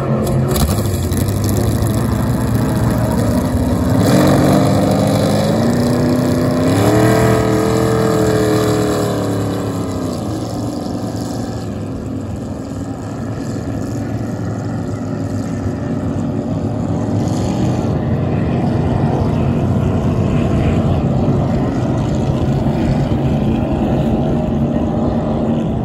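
Hydroplane race boat's engine revving up as the boat gets under way, its pitch climbing around 4 seconds in and again about 7 seconds in, then easing back into a steady drone as the boat runs off across the water.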